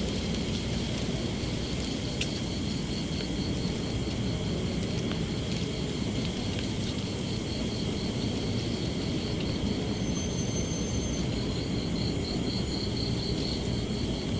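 Insects chirping steadily with an even, pulsing high trill, over a steady low rumbling noise.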